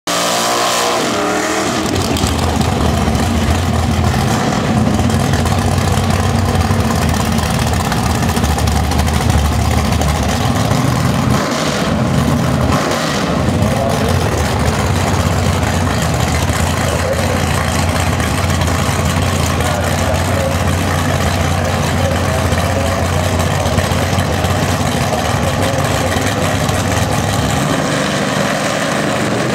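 Drag-race car engines running loudly at the starting line. At the start, a Chevrolet Vega does a burnout with its rear tyre spinning. Then the engines idle with a steady deep rumble while the cars stage.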